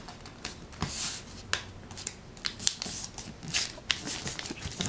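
A sheet of paper being folded and creased flat by hand, with short, irregular crackles and rustles of the paper.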